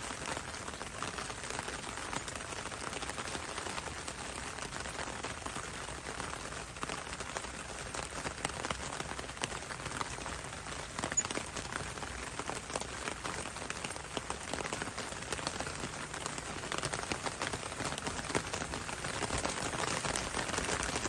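Steady rain falling on hard surfaces, with many individual drops ticking and pattering through a continuous hiss.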